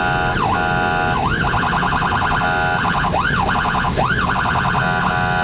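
Emergency vehicle's electronic siren heard from inside the cab, switching between quick rising-and-falling sweeps, rapid warbling pulses and stretches of steady tone, over steady road and engine noise.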